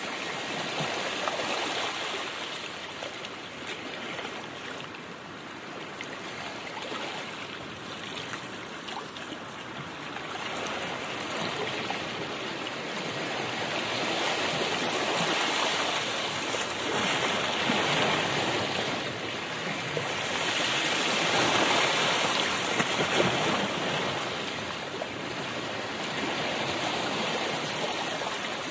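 Road and wind noise heard inside a moving car: a steady hiss with no engine note standing out, swelling and easing every few seconds.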